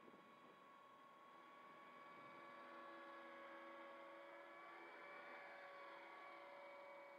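Faint whine of an electric Tarot 450 RC helicopter's motor and rotors in flight: a few steady high tones that grow louder over the first few seconds and waver in pitch about five seconds in.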